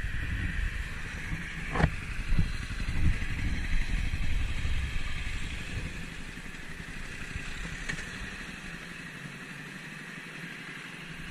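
Motorcycle being ridden, its engine running under a steady rush of wind noise on the microphone, with a sharp click about two seconds in. The low rumble fades away over the second half.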